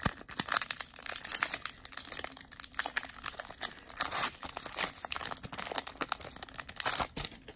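Foil wrapper of a Pokémon trading card booster pack being torn open and crinkled by hand: a dense, continuous crackling that stops shortly before the end.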